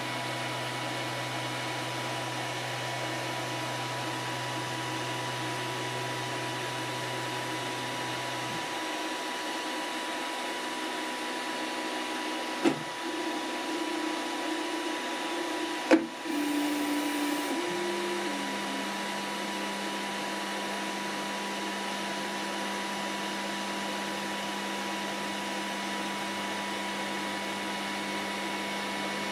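Elegoo Neptune 4 Plus 3D printer running its start-of-print routine: fans give a steady whir under steady stepper-motor hums that change pitch as the axes move. A low hum stops about a third of the way in, two sharp clicks come near the middle, and a new steady hum starts a little past halfway.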